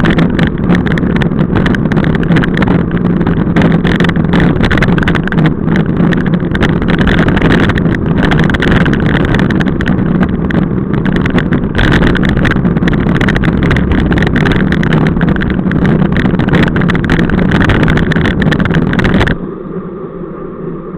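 Loud, steady rush of wind on a bike-mounted camera's microphone, mixed with road-bike tyre noise, while riding at speed in a group. Near the end it drops suddenly to a quieter, duller rush.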